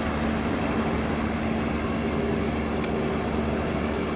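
Passenger ship KM Glory Mary's engines running with a steady low hum and a held mid tone, under the even hiss of its bow wave as it passes under way.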